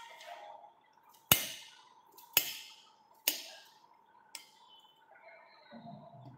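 Kitchen knife chopping through cucumber and striking the hard countertop: four sharp knocks about a second apart.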